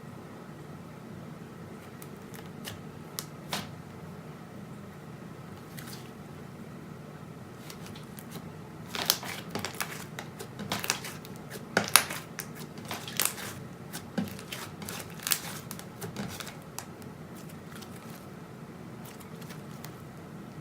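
Hands working slime: a run of sharp sticky pops and crackles, thickest from about 9 to 16 seconds in, with a few lone clicks before, over a steady low hum.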